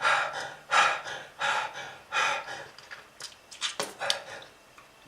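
A person's harsh, breathy coughing: a run of short hacking bursts, quickening into sharper ones midway. It is the cough of smoking-related lung disease.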